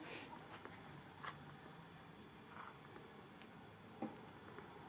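Steady high-pitched drone of insects in the surrounding forest, with a few faint brief clicks and taps.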